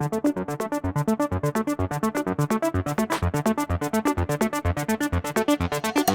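Background electronic music: a fast, even pulse of synthesizer notes.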